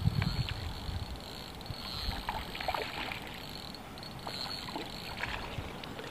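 Water splashing in short, irregular bursts as a small hooked fish thrashes at the surface while being reeled in.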